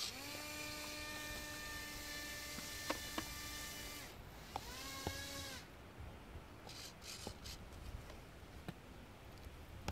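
Small electric motor of a radio-controlled fan boat spinning its air propeller: a steady high whine for about four seconds, then a shorter burst about a second later that rises and falls in pitch as the throttle is blipped.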